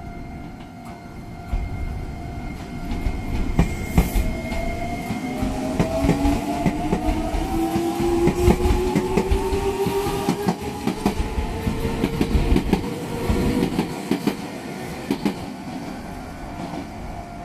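Nagoya Municipal Subway N3100 series electric train pulling away: its traction motors' inverter whine rises steadily in pitch as it accelerates, over a rumble of wheels clacking on the rail joints.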